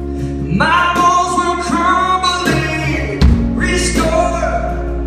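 A band playing a pop-rock worship song: a male lead voice sings the chorus in long held notes over guitar and a steady bass line, and the bass shifts to a new note about three seconds in.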